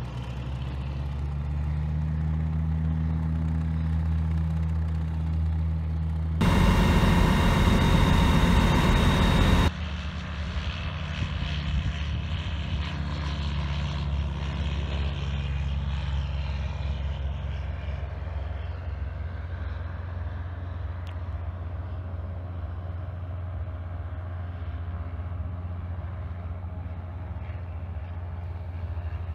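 Van's RV-12 light aircraft's engine and propeller running at full takeoff power, then fading slowly as the plane climbs away. About a quarter of the way in, a loud rushing noise cuts in for about three seconds and stops abruptly.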